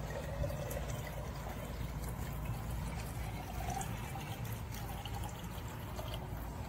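Water pouring from a plastic cup into a glass jar, filling it steadily, with a low rumble underneath.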